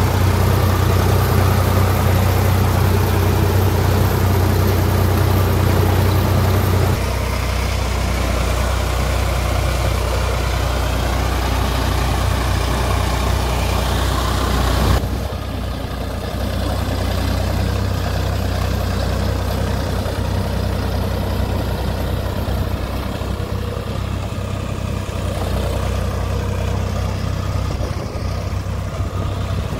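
Sonalika tractor's diesel engine running steadily under load, driving a rotavator through wet paddy-field mud. The sound changes abruptly twice, and after about halfway it is heard from farther off.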